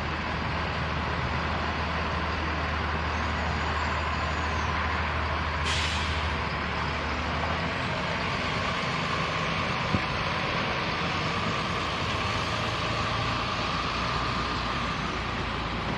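Diesel engine of a Sperry hi-rail rail-inspection truck running as it rolls slowly past on the track, with a low drone that eases off about eight seconds in. A short air hiss comes about six seconds in.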